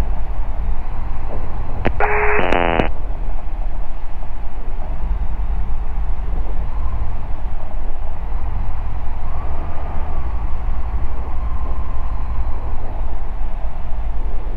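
Ikarus C42 microlight's engine and propeller droning steadily with airflow noise during the final approach and landing. A short burst of radio speech comes in about two seconds in.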